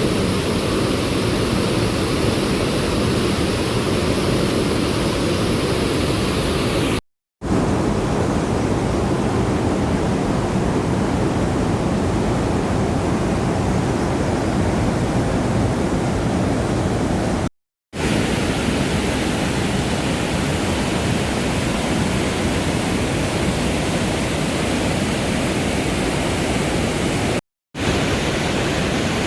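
Steady rush of a fast-flowing mountain river, a dense low noise, broken three times by a brief drop to silence.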